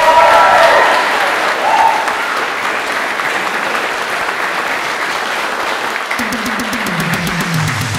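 A crowd of wedding guests applauding and cheering, with a few whoops near the start.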